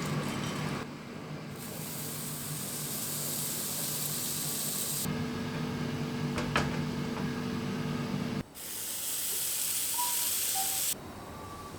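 A steady hissing noise in two stretches of a few seconds each, each starting and stopping abruptly, over a low steady hum that cuts off about eight and a half seconds in.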